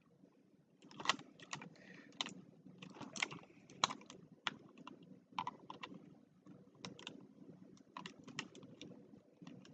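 Plastic puzzle pieces clicking and clacking irregularly as a twisty puzzle is turned and handled by hand, starting about a second in.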